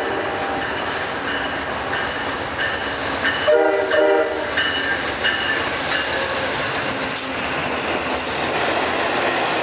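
Amtrak GE P42 Genesis diesel locomotive giving one short horn toot about three and a half seconds in as it arrives, followed by the steady rumble and wheel clatter of the train's passenger cars rolling past.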